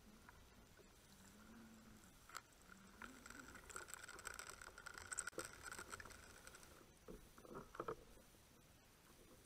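Faint underwater sound heard through a camera housing: a soft fizz and crackle of air bubbles streaming past for a few seconds, with a few light clicks and some soft knocks near the end.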